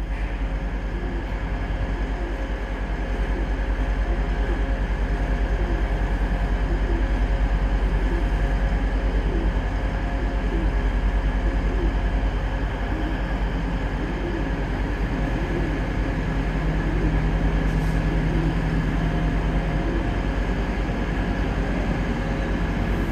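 Class 156 and Class 158 diesel multiple unit running as it draws into the platform: a steady low rumble with a few held engine tones above it.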